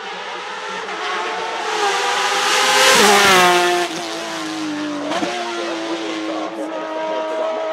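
Porsche 911 RSR (991.2) race car's 4.0-litre flat-six approaching and passing close by, loudest about three seconds in, its pitch falling as it goes past and pulls away. There is a short break in the engine note about five seconds in, then it runs on at a steadier pitch.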